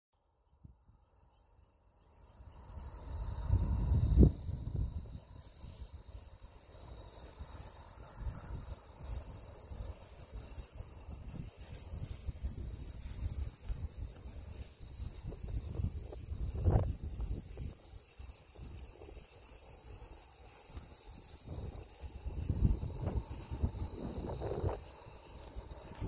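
A steady, high-pitched chorus of grass insects such as crickets, trilling without a break, fading in about two seconds in. Low thumps and rumbles come and go underneath, the loudest about four seconds in.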